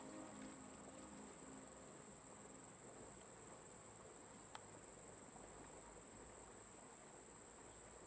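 A steady, high-pitched insect drone, as of crickets or cicadas, with one brief sharp click about four and a half seconds in.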